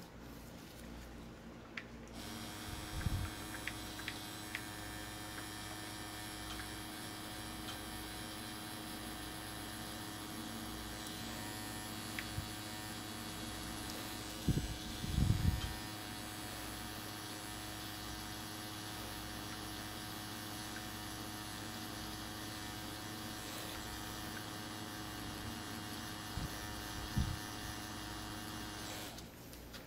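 Pen-style rotary tattoo machine running with a steady hum while shading skin, starting about two seconds in and stopping just before the end. A few short low thumps occur, the loudest about halfway through.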